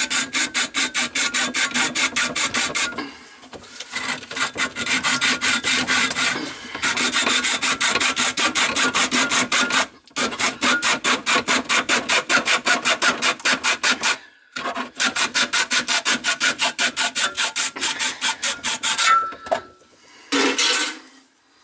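A metal sink drain part being cut by hand with rapid rasping saw strokes. The strokes come in several runs broken by short pauses.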